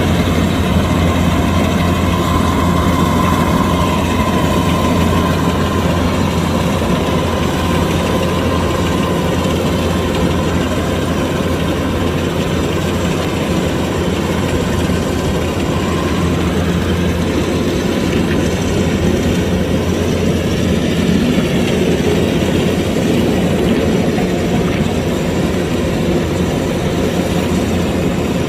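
Kubota DC-105X rice combine harvester running steadily, its diesel engine humming loud and low. A mechanical whine rides over it and fades out about two-thirds of the way through.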